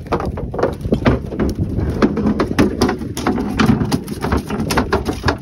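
A freshly landed catfish thrashing on a boat's deck: a rapid, irregular run of knocks and slaps.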